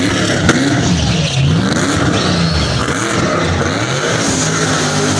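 Drift car's engine revving up and down repeatedly during a drift run, with a sharp crack about half a second in.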